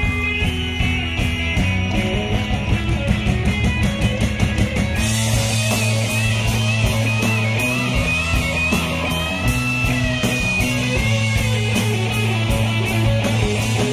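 Live rock band playing an instrumental break with no singing: a Telecaster-style electric guitar carries a wavering lead line over steady bass and drums. The cymbals come in harder about five seconds in.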